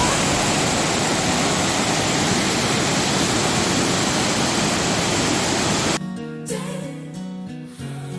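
Waterfall rushing as a dense, steady wash of water noise that cuts off suddenly about six seconds in. Soft plucked guitar music follows.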